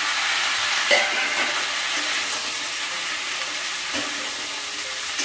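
Chopped sponge gourd sizzling steadily in hot oil in a steel kadai, just tipped into the pan. Sharp metal clinks against the pan sound about a second in and again near four seconds.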